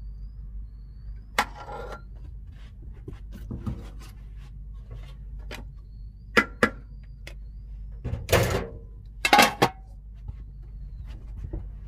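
Metal spoon scraping and clinking against an aluminium cooking pot, a few sharp clinks spread out, then the pot's metal lid set on with two louder clattering, ringing knocks near the end. A steady low hum runs underneath.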